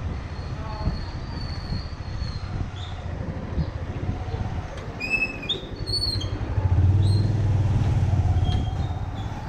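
Motorcycle engine running at low speed, a steady low pulsing rumble that grows louder for about two seconds near the end. A few short high chirps sound about five to six seconds in.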